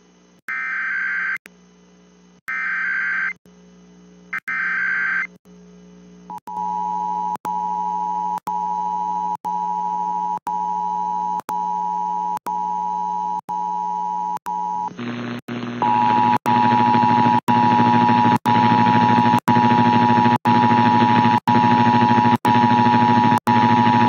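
Emergency Alert System tones from a monthly test broadcast: three short bursts of the data header in the first five seconds, then the steady two-tone attention signal. The attention signal gets louder and rougher about fifteen seconds in, with short dips about once a second.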